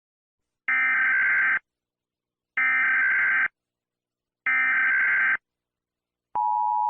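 Emergency Alert System SAME header: three bursts of warbling digital data tones, each about a second long and about two seconds apart. Near the end the steady two-tone EAS attention signal begins.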